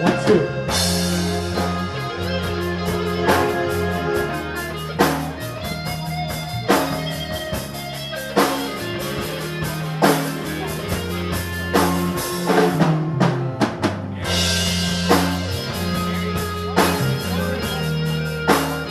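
Rock music with drum kit, guitar and bass, heavy drum accents about every second and a half, and a cymbal crash about fourteen seconds in.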